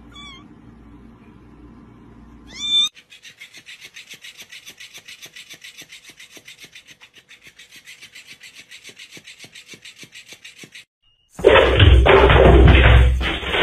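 A kitten meowing twice, the second call a loud rising one, then an electric flopping fish cat toy ticking steadily at about four ticks a second for several seconds. Near the end a loud, rough rushing noise cuts in.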